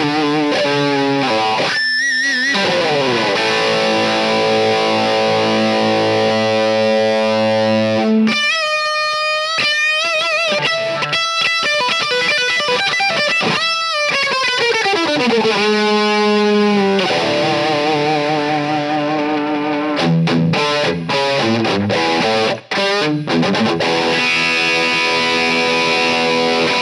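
Epiphone Flying V electric guitar playing a distorted lead through a Marshall SC20H amp boosted by an Xotic BB Preamp: held notes with vibrato, bursts of fast runs and sliding notes, with a brief break a little after the middle.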